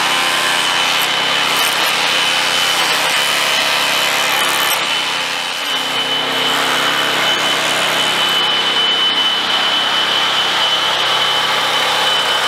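Walk-behind asphalt cutting saw running with its large circular blade cutting a groove into asphalt: a steady grinding with a high, steady whine, easing briefly about five and a half seconds in.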